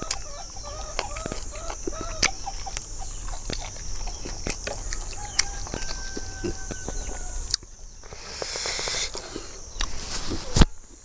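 A chicken clucking in short repeated notes in the first second or so, over a steady high insect buzz, with close chewing and lip-smacking clicks throughout. The buzz cuts off abruptly about two-thirds of the way in, followed by a rustling hiss and one sharp click near the end.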